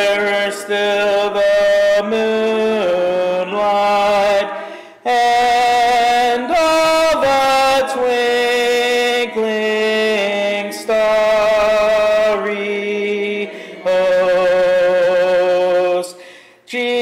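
A slow hymn sung in long held notes, line by line, with short breaks between the lines.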